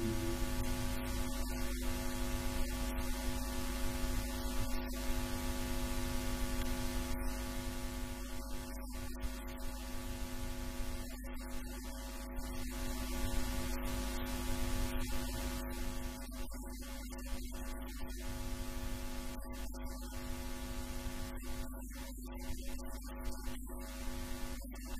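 Steady electrical hum with a stack of buzzing overtones over a hiss, unchanging throughout and broken now and then by brief dropouts.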